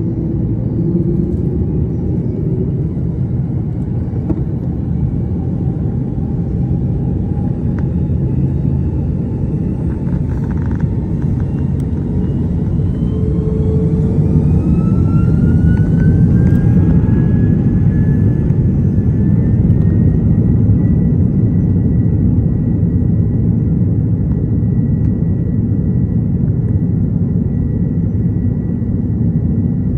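Jet airliner's takeoff roll heard from inside the cabin: a steady loud rumble, with an engine whine that rises in pitch from about eight seconds in and levels off about twenty seconds in as the engines spool up to takeoff thrust.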